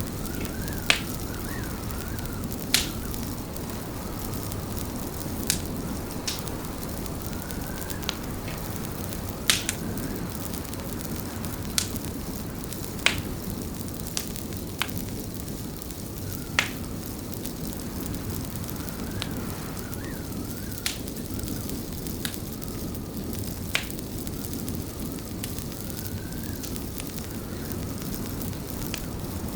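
Fireplace crackling: a steady low rumble of burning wood, broken every second or two by sharp single pops.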